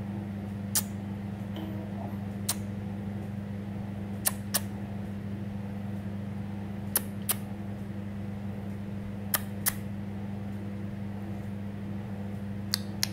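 Steady low electrical hum in a small room, with sharp clicks every two to three seconds, most of them in pairs about a third of a second apart.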